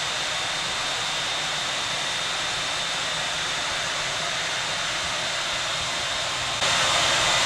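Electric air pump running steadily while it inflates an RV air skirt tube: a rushing blower noise with a steady high whine, which gets louder about six and a half seconds in.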